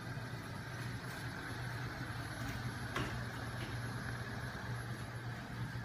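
Home-built magnet engine running, its flywheel and crank linkage spinning fast, driven by a small 12-volt electric motor. It makes a steady mechanical hum with a few faint clicks.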